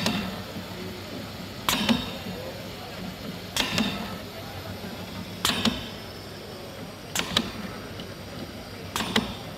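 Wilden H1500 air-operated double-diaphragm pump running, giving a short, sharp burst of exhaust air at each stroke change about every two seconds, over a steady low hum.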